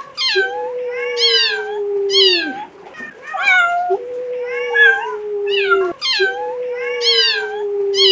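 A wolf pack howling: three long, steady low howls, each dropping at its end, overlapped by shorter, higher yipping howls.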